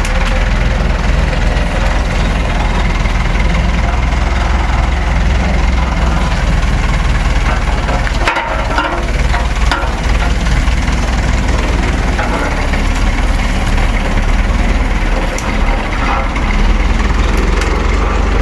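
Heavy diesel truck engine idling with a steady low rumble, with a few sharp knocks about halfway through.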